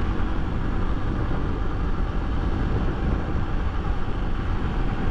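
Honda XRE300's single-cylinder engine running steadily at a cruise of about 85 km/h, mixed with wind and road noise.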